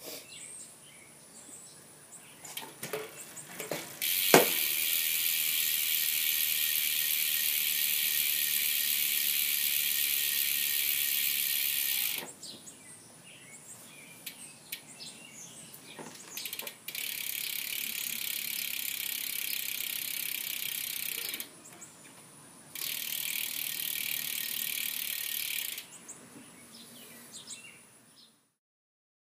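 Novatec rear freehub on a carbon clincher road wheel ticking as the spinning wheel coasts, the pawl clicks coming so fast that they run together into a high, steady buzz. It comes in three bouts of about eight, five and three seconds, each starting and stopping suddenly, with quiet gaps between. A sharp click comes just before the first bout.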